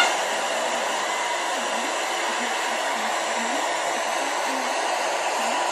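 Arena crowd cheering: a steady wall of crowd noise with no break.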